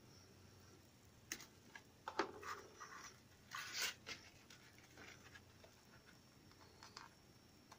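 Faint rustling and crinkling of patterned paper being handled, folded and pressed together, with a few short scratchy rustles, the loudest about two and four seconds in.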